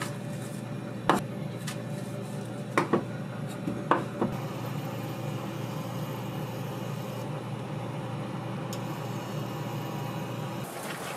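Kitchen utensils, pans or dishes knocking and clinking about five times in the first half, over a steady low hum.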